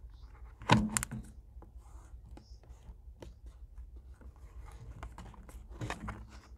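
Handling noise from a cardboard toothpaste carton held over a plastic sheet. There is a loud knock and rustle about a second in, then scattered light taps and clicks of fingers on the cardboard, and another burst of handling near the end.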